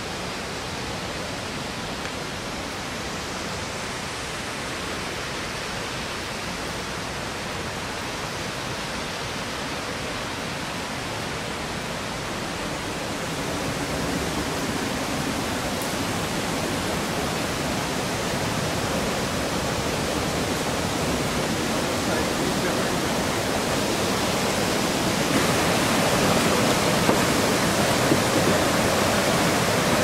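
Steady rush of water from a waterfall, growing gradually louder through the second half.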